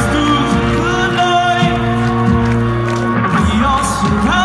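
Rock band playing live through an outdoor stage's PA, with a singer holding long notes over the guitars and drums and swooping up near the end.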